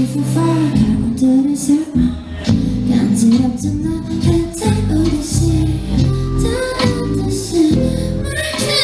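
Pop song played at full volume with a heavy bass line and chords, an instrumental stretch of the song. A woman's singing voice comes in near the end.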